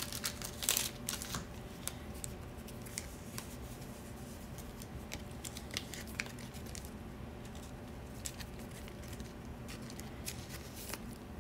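Trading cards and a plastic card sleeve being handled: faint crinkling and soft clicks of a card being slid into a sleeve and cards being picked up and thumbed through, busiest in the first second or so, then scattered light ticks.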